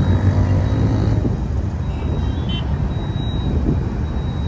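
Motorcycle running along a road, with a steady low wind rumble on the microphone.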